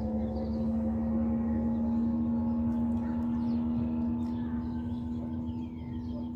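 A steady low-pitched hum with a few overtones, holding level throughout, over a low rumble. Birds chirp faintly above it.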